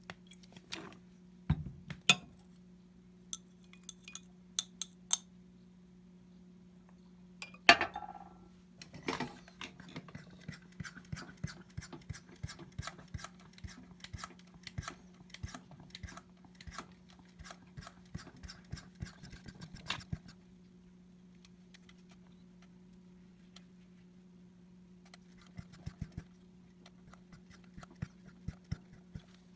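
A thin metal spatula clinking and scraping against a glass vacuum-filter funnel as it stirs the wet sludge on the filter, over a steady low hum. It starts with a few separate clinks and a loud one about eight seconds in, then a long run of quick small scraping clicks, a quieter pause, and more clicks near the end.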